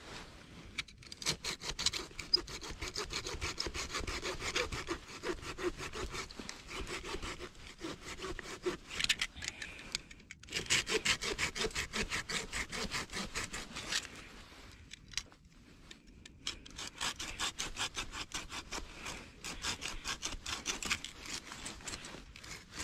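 Hand-held folding saw cutting through a piece of firewood in quick, even back-and-forth strokes. The sawing stops briefly about ten seconds in and slackens again around fifteen seconds, then resumes.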